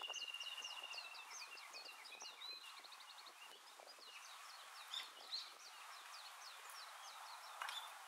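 Many small birds chirping with short, quick calls, with a steady trill in the first second or so and a rapid run of repeated notes near the middle. Two footsteps on stone steps about five seconds in.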